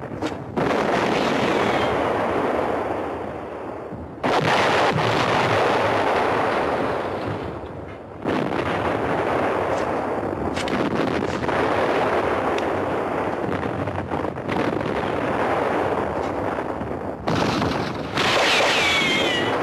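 Explosions from a battlefield bombardment: a sudden heavy blast roughly every four seconds, then another near the end. Each blast is followed by several seconds of dense rumbling noise, like earth and rubble coming down.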